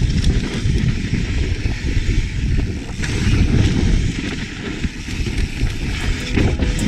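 Yeti SB150 mountain bike ridden down a rocky dirt trail: tyres rolling over dirt and rock, with the bike rattling and heavy wind noise on the camera's microphone.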